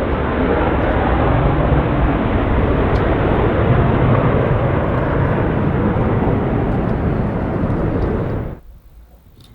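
Jet noise of a Panavia Tornado's twin RB199 turbofan engines, a loud, deep rumble likened to an earthquake. It cuts off suddenly about eight and a half seconds in.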